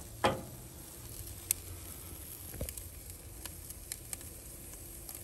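Ribeye steak searing on a Weber charcoal kettle's grate directly over hot coals: a steady soft sizzle with scattered sharp crackles and pops.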